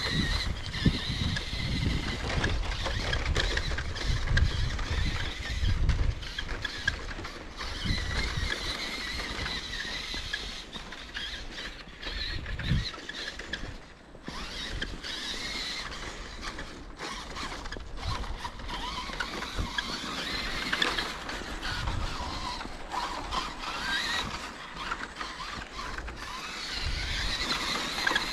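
Electric RC truck's motor and gearbox whining, the pitch rising and falling as the throttle changes, with low rumbling at times, loudest in the first few seconds.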